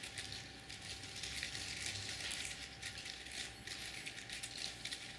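Crepe paper rustling and crinkling faintly and irregularly as fingers twist the cut fringe of a strip into thin needles.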